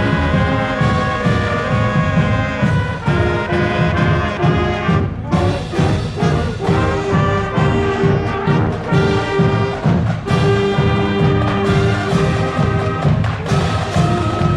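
High school marching band playing, with brass carrying a sustained melody over a steady drum beat.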